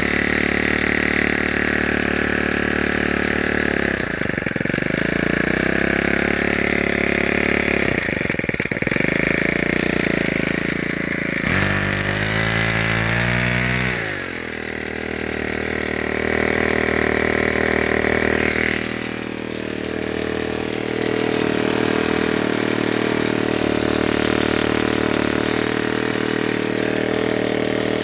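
Ryobi S430 4-cycle engine running, its speed changing several times, with an annoying clicking that signals a fault whose cause the owner does not know.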